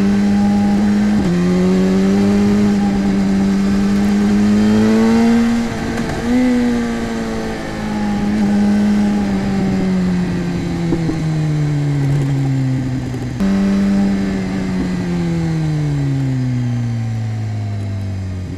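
A sport motorcycle's engine under a hard ride. It holds high revs and climbs a little for about five seconds. Then it winds down twice on a closed throttle, and each time jumps sharply up in revs, once about thirteen seconds in and again at the very end, as a downshift would.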